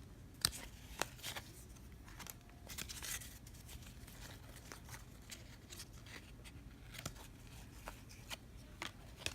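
Trading cards being handled and flipped through: faint, scattered flicks and clicks of card stock, with a sharper snap about half a second in and another about a second in.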